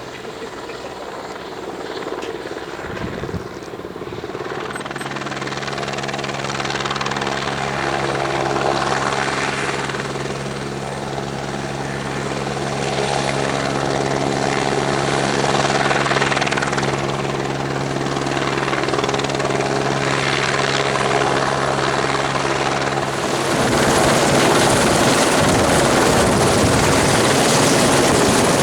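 Helicopter running, a steady pitched hum that grows louder; near the end it changes abruptly to a louder, fuller rushing noise.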